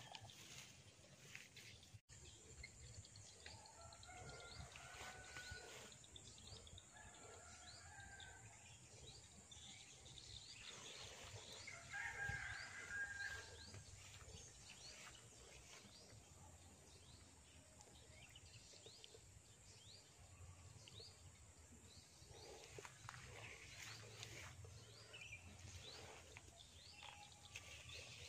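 Faint rural outdoor ambience with scattered bird calls and soft rustles; a rooster crows once about twelve seconds in, the loudest sound.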